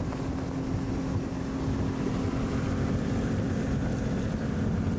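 Fishing boat's outboard engine running at speed, a steady drone with water and wind rushing past the hull.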